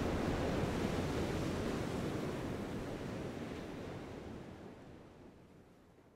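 Ocean surf washing, a steady rush of noise that fades out gradually to almost nothing.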